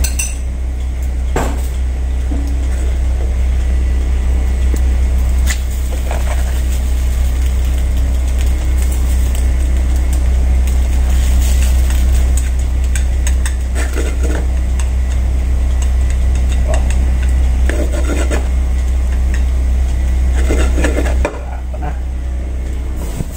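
Loud steady low rumble of commercial kitchen equipment under light clicks and scrapes of chopsticks against a nonstick frying pan as a thin egg sheet is loosened. The rumble drops abruptly about two seconds before the end.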